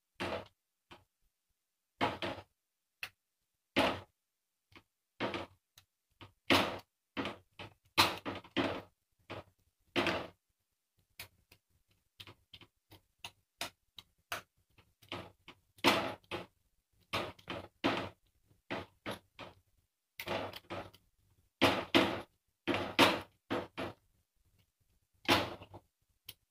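Silicone spatula stirring and pressing crumbled paneer as it roasts in a saucepan, giving irregular knocks and scrapes against the pan, some louder than others.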